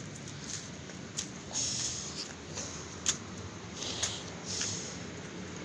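Footsteps and rustling while walking on brick paving: irregular scuffs and clicks with a few brief rustles, over a steady low hum.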